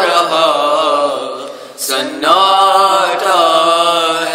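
Men chanting an Urdu noha, a mourning lament, in long drawn-out sung lines with no instruments. The singing dips briefly about two seconds in, then picks up again.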